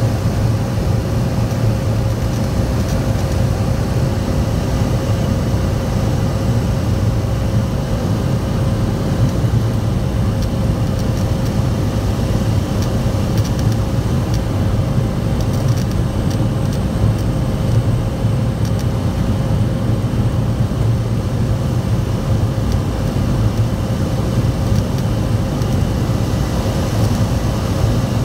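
Cessna 208 Caravan's turboprop engine and propeller running steadily during the landing approach, heard inside the cockpit as a constant low rumble with a steady tone above it.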